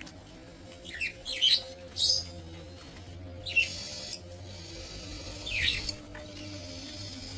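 Budgerigars calling in an aviary: short sharp chirps and squawks, a cluster about a second in, another near two seconds, then single calls at about three and a half and near six seconds.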